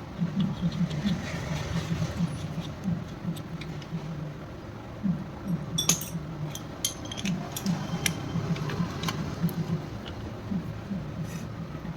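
Metal engine parts and tools clinking and tapping as they are handled, in sharp scattered clicks that come most often in the second half, over a low repeating background sound.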